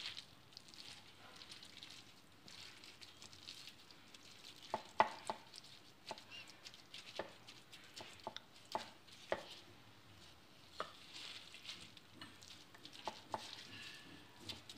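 A plastic-gloved hand smearing a wet herb-and-spice marinade over a raw fish on a plate: faint soft squelching and rubbing, with scattered light clicks at irregular intervals.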